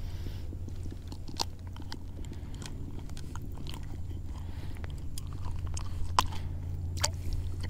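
Handling noise close to the camera: scattered small clicks and crackles at irregular moments, over a steady low hum.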